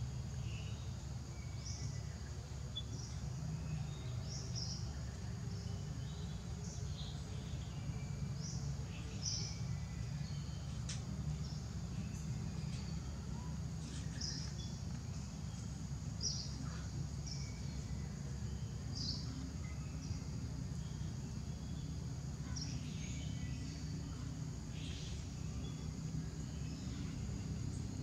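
Outdoor tree-canopy ambience: short bird chirps every second or two over a steady high insect trill and a low, steady rumble.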